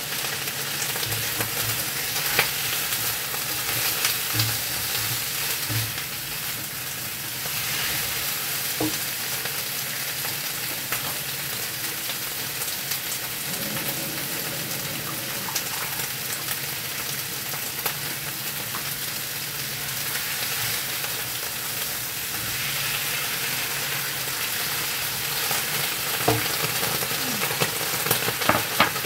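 Flour-coated chicken pieces deep-frying in hot oil in a wok: a steady sizzle with scattered small pops and crackles.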